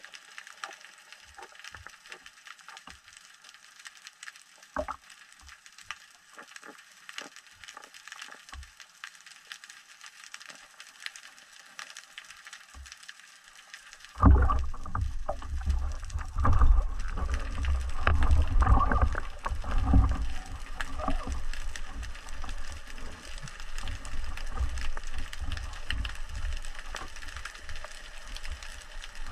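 Underwater sound through a camera housing: scattered faint clicks at first, then a sudden loud thump about halfway through, likely the speargun firing. Continuous low rumbling, churning and knocking follow as the speared trevally struggles on the shaft and line and is pulled in.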